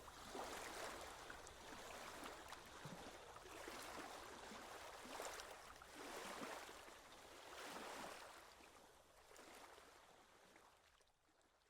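Faint small waves lapping at the shoreline, the wash swelling and easing every second or two and fading out near the end.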